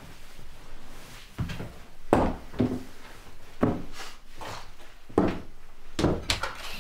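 A series of about eight irregular knocks and thumps on wood, roughly one every half second to second, as someone moves about handling doors or furniture.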